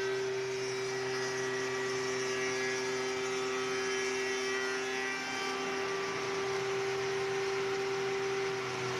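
Unique door-making machine running with a steady, pitched hum from its motor and cutter spindle as a wooden door panel is fed along its sliding table. A lower tone drops out about five seconds in, and the pitch dips slightly near the end.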